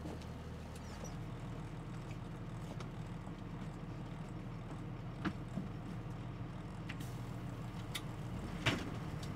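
Bus engine running with a steady low hum, heard from inside the passenger cabin, with a few sharp clicks and knocks, the loudest near the end.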